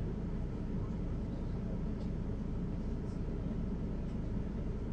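Mercedes-Benz Citaro articulated diesel bus driving, heard from inside the passenger cabin: a steady low engine and road rumble.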